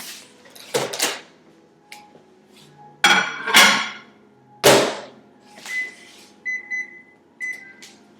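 Microwave oven being loaded and set: clatter of a plate going in, a loud thud as the door is shut, then about four short high keypad beeps as the cooking time is entered.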